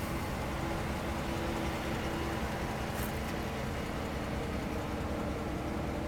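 Steady low rumble and hum of an idling vehicle engine, with one brief light click about three seconds in.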